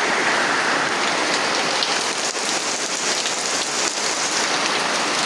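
Steady rain falling, a dense hiss with many fine drop ticks.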